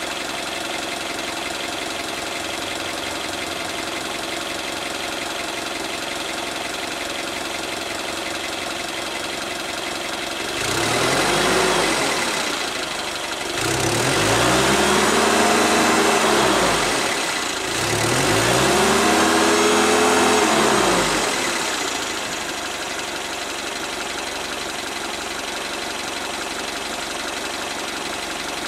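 Sumitomo Yale 3-FG14PVD5 forklift's gasoline engine idling steadily, then revved up and back down three times in quick succession by hand at the throttle linkage, and settling back to idle.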